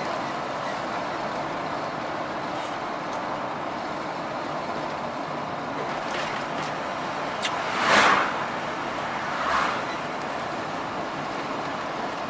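Steady road and engine noise of a long-haul truck driving on a highway, with two oncoming vehicles passing in quick succession about eight seconds in, the first the louder.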